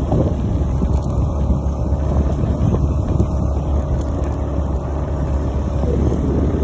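Motor vehicle engine running steadily while on the move, with wind buffeting the microphone.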